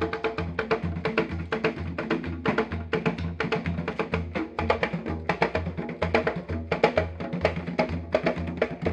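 Traditional Ugandan drum ensemble playing a fast, dense rhythm of sharp hand strokes on wooden drums over a steady low beat about two to three times a second.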